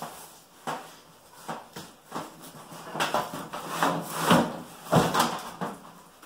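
Cardboard shipping box being tipped over and turned on a wooden table: a run of scrapes of cardboard on wood and dull knocks, loudest about four to five seconds in.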